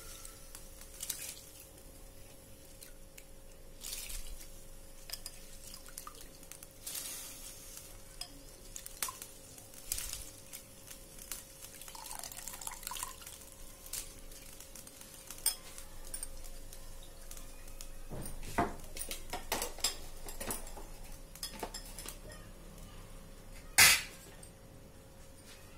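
Rice being tipped into a pot of chicken broth: soft splashes and drips, scattered clinks of a utensil against the metal pot, and one loud clank near the end. A faint steady hum runs underneath.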